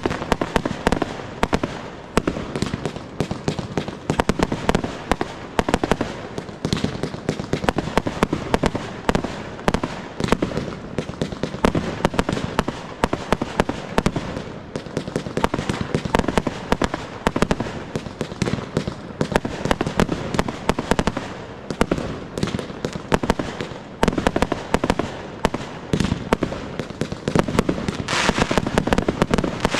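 Professional fireworks display: a continuous barrage of aerial fireworks launching and bursting, many sharp bangs in quick succession. Near the end a hissing crackle joins the bangs.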